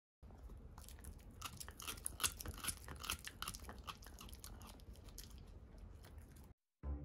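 Italian greyhound gnawing a deer antler: irregular crunches and clicks of teeth grinding and scraping on the hard antler. It stops abruptly near the end.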